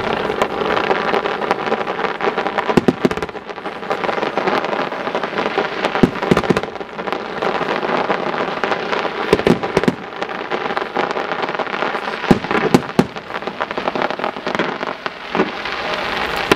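Fireworks display: a dense, continuous crackle of crackling stars and fountains, broken by repeated sharp bangs of shells bursting.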